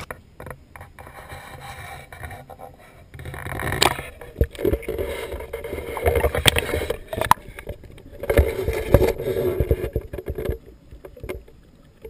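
Water splashing and gurgling around a camera as it dips underwater in a shallow stream, with irregular knocks against it. The sound grows louder and busier about four seconds in.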